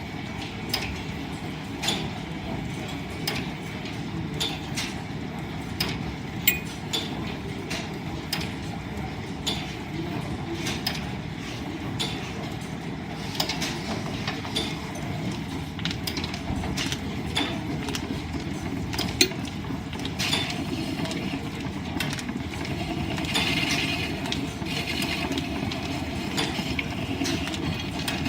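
Line-shaft-driven wood lathe running, its belts, pulleys and shafting giving a steady rumble with frequent irregular clicks and ticks. A brighter hiss joins in near the end.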